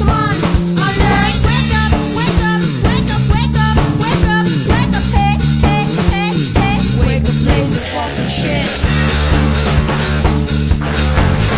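Background rock music with a drum kit keeping a steady beat and a melody over it.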